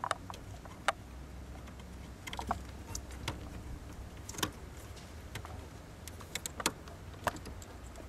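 Plastic electrical connectors being pushed onto a brake light switch under a car's dashboard: scattered small clicks and knocks of plastic, with wires rattling, over a low steady hum.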